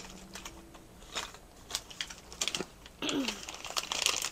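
Scattered light clicks and taps of small objects being handled, growing busier and denser near the end.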